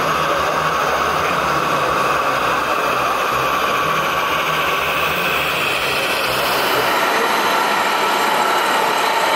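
Radio-controlled scale Mercedes-Benz truck running, its engine-sound unit giving a low, pulsing diesel rumble over a steady higher hum. The low rumble drops out about seven seconds in, leaving the higher hum.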